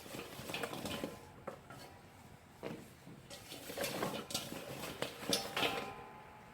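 Scattered knocks, clinks and short rustles of kitchen containers being handled while sliced luffa and sugar are packed into a crock. A few of the knocks ring briefly, near the middle and about five and a half seconds in.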